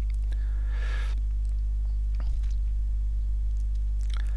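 Steady low electrical hum with a few faint overtones, with a brief faint hiss about half a second in and a few faint ticks.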